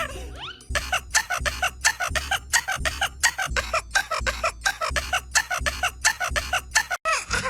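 Effects-processed, pitch-shifted meme-edit audio: a fast, even run of short pitched pulses, about six a second, over a pulsing low bass, with a quick swoop in pitch just after the start.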